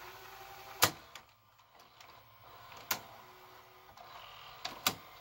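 Fisher FVH-4901 VHS VCR's tape mechanism during blank search: a faint motor whine cuts off with a loud click about a second in. Another click follows about two seconds later, then a quick pair of clicks near the end, as the transport stops at the blank part of the tape and changes mode.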